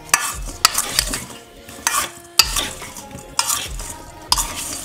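Metal spoon tossing seasoned halved potatoes in a stainless steel mixing bowl, scraping and clinking against the bowl's side repeatedly, with the soft tumble of the potato pieces between strokes.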